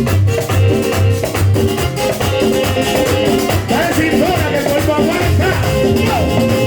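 Live merengue band playing, with a steady pulsing bass and a continuous shaker rhythm. A sliding melody line comes in about four seconds in.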